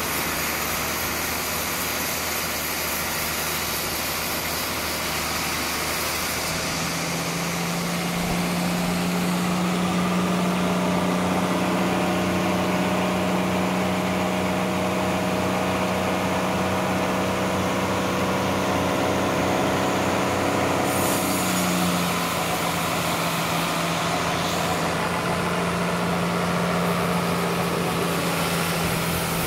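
Industrial bandsaw sawmill machinery running steadily. About six seconds in, a strong steady hum sets in over the noise, then shifts slightly lower about twenty-two seconds in.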